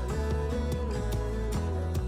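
Background music: guitar-led instrumental with a steady beat.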